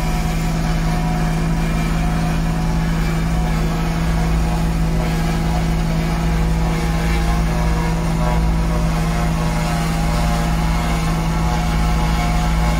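A tractor-drawn forage harvester and the tractors working with it running steadily as they chop grass into a silage trailer: a constant diesel drone with a steady hum that does not change.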